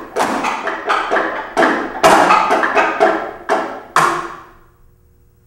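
A run of about ten sharp percussive strikes, roughly two a second, each ringing briefly. The last comes about four seconds in and dies away.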